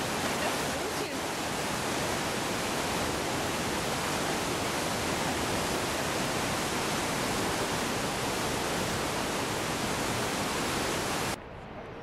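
Steady rushing of the Niagara River's whitewater rapids, a dense even noise, cutting off abruptly near the end into a much quieter open-air background.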